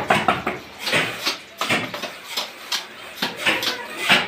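A hand trowel scraping and digging through a heap of sand-and-cement bedding mix, with irregular gritty scrapes and small knocks.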